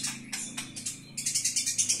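Eurasian tree sparrow giving its harsh, rapid chattering 'fighting' call (gereja tarung). There are a few short bursts of high chirps, then a fast, dense run of chirps from just past halfway.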